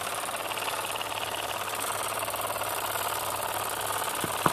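Small toy stationary steam engine running steadily, its cylinder chuffing rapidly as the flywheel spins. Two sharp clicks near the end, the second the loudest sound.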